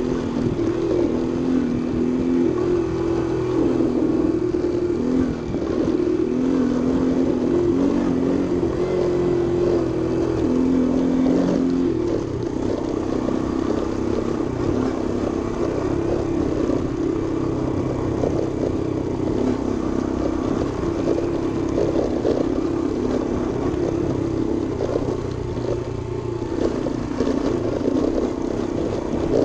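Small motor scooter's engine running under way on a rough track, heard from the handlebars. Its note steps up and down with the throttle for the first dozen seconds, then runs steadier.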